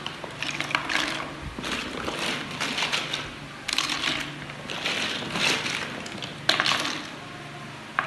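Plastic toy building blocks being rummaged in a box and fitted together: irregular clattering and rustling with a few sharper clacks.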